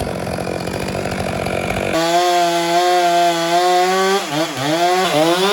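Two-stroke chainsaw running: rough at first, then held at high revs from about two seconds in. Near the end its pitch drops briefly and recovers several times.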